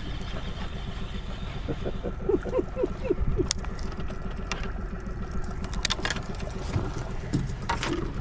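Boat motor running steadily with a low hum. A short run of small squeaks comes about two seconds in, and a few sharp clicks follow later.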